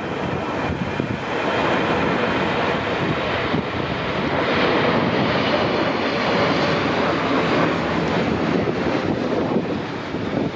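Jet engines of a Boeing 777 airliner running as it passes: a dense, steady rushing noise that builds to its loudest around halfway through and eases slightly near the end.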